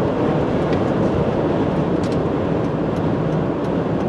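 Steady road and engine noise heard from inside the cabin of a 2007 GMC Yukon Denali being driven: tyre hum and the V8 engine running.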